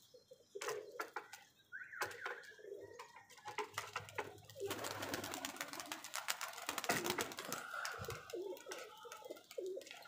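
Domestic pigeons cooing, with a flurry of rapid wing claps about halfway through as birds take off from the loft.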